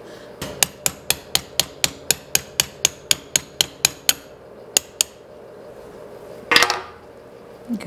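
Brass hammer tapping a steel punch to drive the handle pivot pin out of a DoAll drill press's power down feed, a quick even run of sharp metallic taps at about four a second. Two more taps follow, then one louder, rougher knock near the end.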